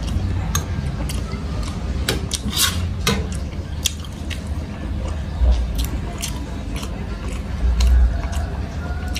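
Close-up chewing of a mouthful of rice and pork: wet mouth clicks and smacks, one after another, with a denser run of them a couple of seconds in.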